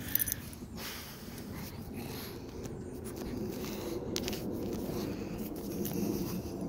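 A pug nuzzling and licking at close range: scratchy rustles and small clicks of fur and paws against the phone and clothing, over a low, uneven snuffly noise.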